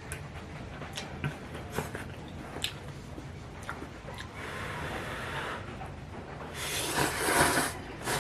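A person eating instant ramen noodles: a few small clicks of utensils in the bowl, then slurping, with a longer, louder slurp near the end.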